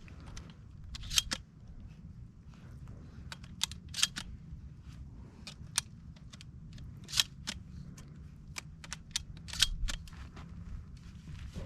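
Slugs being loaded one at a time into a Remington 870 pump-action shotgun's tube magazine: a series of sharp metallic clicks a second or two apart.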